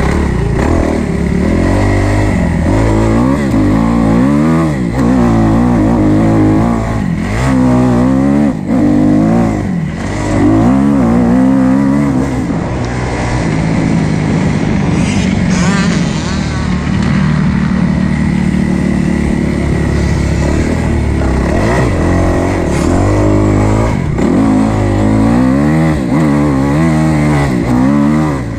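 Kawasaki KX250F single-cylinder four-stroke motocross bike ridden hard, its engine revving up and dropping back again and again through throttle runs and gear changes, with a steadier, held stretch about midway.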